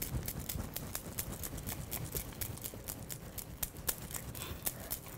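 Mashed rice being swirled in a small bowl to shape an omo tuo rice ball, the rice knocking against the bowl in a quick, uneven rhythm of about four or five knocks a second.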